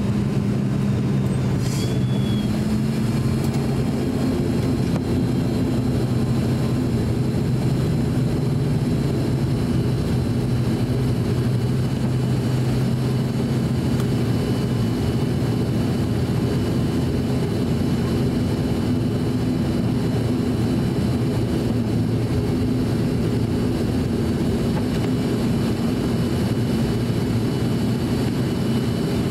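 ATR 42-600's Pratt & Whitney PW127 turboprop engines and propellers at taxi power, heard inside the cabin beside the nacelle: a steady drone with a low propeller hum. The hum's pitch steps up slightly about two seconds in.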